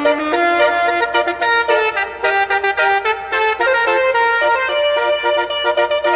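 Basuri telolet horn, a multi-note musical air horn, playing a quick tune: one held note after another, changing pitch several times a second without a break.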